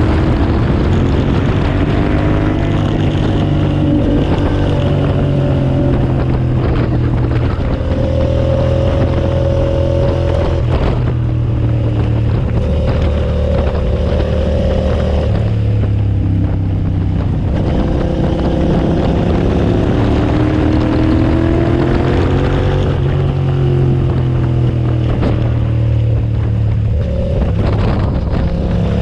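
2007 Suzuki SV650S 645 cc V-twin engine at track speed, its pitch climbing under acceleration and dropping again over and over, with brief breaks in the note every few seconds.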